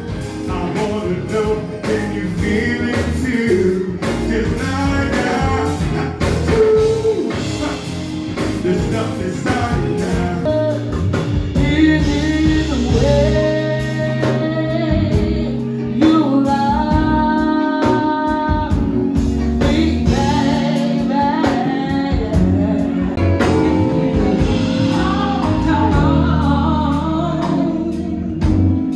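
Live band performing: a vocalist sings over keyboard, electric guitar and drums in a soulful, churchy style, filmed close to the stage.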